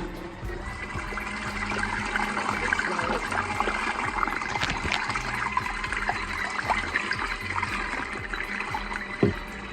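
Portable mini washing machine running its wash cycle with the lid off: a steady motor hum under water churning and sloshing in the tub. A short knock about nine seconds in.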